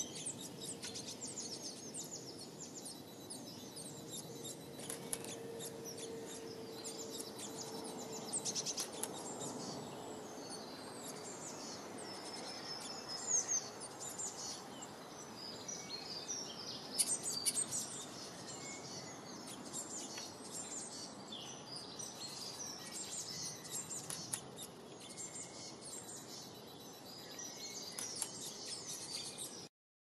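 Small songbirds chirping and twittering continuously, many short high calls overlapping, over a steady background hiss. A faint steady low hum sounds between about four and nine seconds in.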